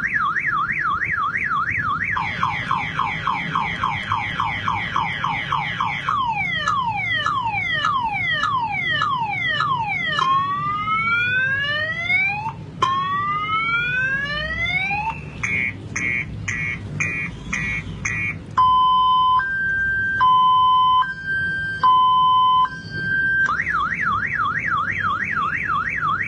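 A man imitating a car alarm with his voice, running through its full cycle of tones: a fast warble, a faster warble, repeated falling sweeps, repeated rising sweeps, rapid beeping, then a slow two-tone high-low, returning to the fast warble near the end.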